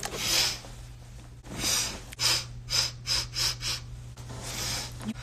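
A girl sniffling over and over through a stuffy nose: about eight sniffs, with a quick run of short ones in the middle and longer inhales near the start and end.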